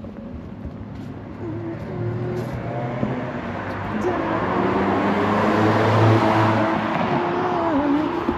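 A road vehicle passing by, its noise swelling to a peak about six seconds in and then easing off, with faint voices underneath.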